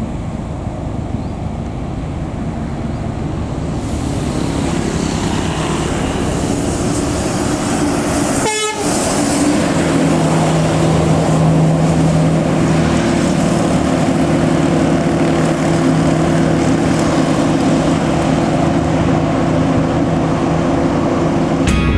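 Road traffic as an intercity coach approaches and passes close by on a two-lane road, with motorbikes. The noise grows louder throughout. After a short break about 8.5 s in, a steady low drone of several pitches holds to the end.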